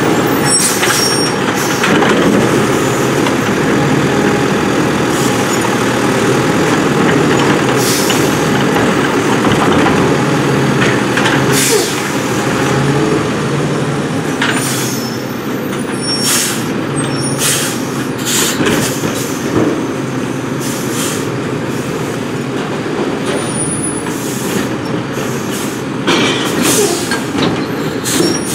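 Condor garbage truck with a McNeilus Autoreach automated side-loading arm working a row of curbside carts: the diesel engine and hydraulics run steadily, with sharp bangs of carts and lids at intervals and brief air-brake hisses.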